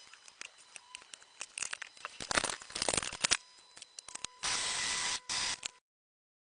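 Workshop handling and tool noises: irregular clicks, taps and scraping, then a steady hiss for about a second and a half that cuts off abruptly.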